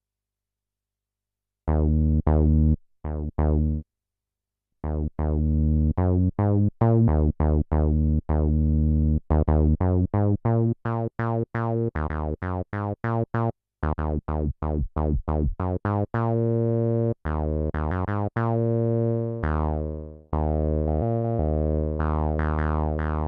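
Akai Timbre Wolf analog synthesizer playing a funky, staccato bass line of short plucked notes, starting about two seconds in after silence. It is fed through an octave pedal and stomp-box effects. Some longer held notes come in near the end, with falling filter sweeps.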